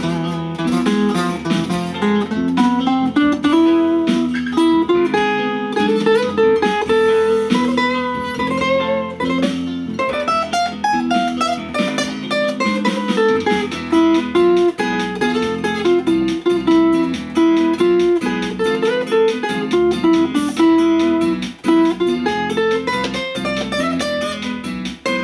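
Acoustic guitar playing a slow, melodic single-note solo in the E Phrygian dominant scale over a Latin-rock bossa nova backing track at 140 BPM.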